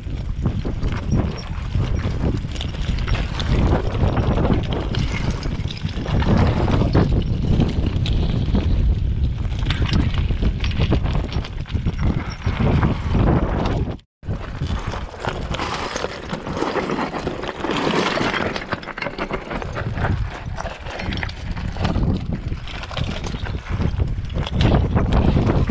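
Mountain bike rolling down a loose, rocky shale trail: the tyres crunching and clattering over the stones and the bike rattling over the bumps in a dense, irregular run of knocks over a low rumble. The sound cuts out for an instant about halfway.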